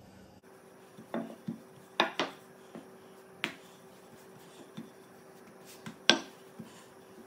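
Wooden rolling pin rolling dough on a granite countertop, with a dozen or so scattered knocks and taps as the pin is lifted and set back down on the stone; the loudest come about two seconds in and again about six seconds in. A faint steady hum underneath.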